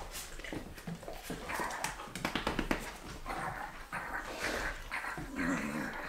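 A dog playing roughly and jumping up on a person, making excited vocal noises, with claws clicking and scrabbling on a hardwood floor.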